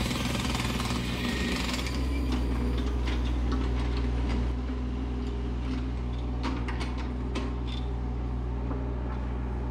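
Yanmar mini excavator's diesel engine running steadily as the machine works its arm. A hissing rattle fades out about two seconds in, and a few sharp metallic clinks come near the end.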